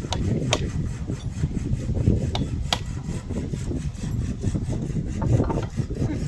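Hand pull saw cutting through wood: an uneven rasping of the teeth in the cut, with a few sharp clicks.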